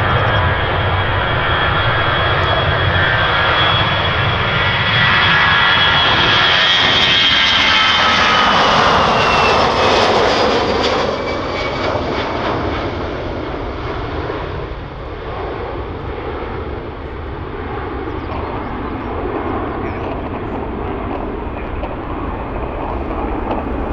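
Airbus A321-213 jet airliner at takeoff thrust, its CFM56 turbofans roaring with a high whine. About ten seconds in, the whine drops in pitch as the jet passes, and the sound then fades to a duller rumble as it climbs away.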